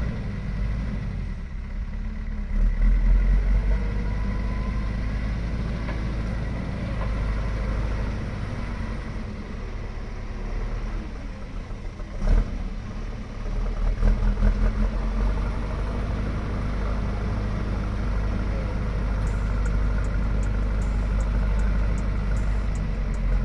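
JCB backhoe loader's Kirloskar diesel engine running steadily, with a single sharp knock about halfway through.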